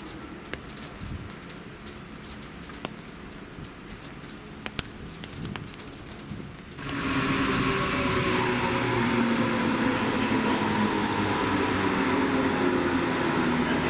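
Rain falling, with scattered sharp drop clicks, then about seven seconds in an abrupt change to a Munich S-Bahn class 423 electric multiple unit moving along the platform close by. Its running noise is loud, with several steady electric whining tones from the drive.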